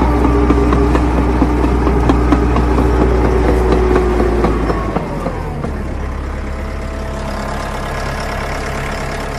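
An engine running steadily with a deep hum. About five seconds in it changes to a slightly quieter, lower steady hum.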